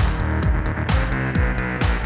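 Electronic music with a driving beat: a kick drum about four times a second, sharp percussion hits and sustained synth notes.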